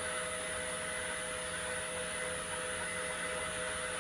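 Steady hum of the open-channel flume's pump running, a constant wash of noise with a few fixed tones through it.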